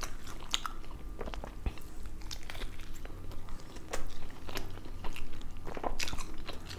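Close-miked chewing with sharp mouth clicks, and a bite into a double bacon cheeseburger about four seconds in.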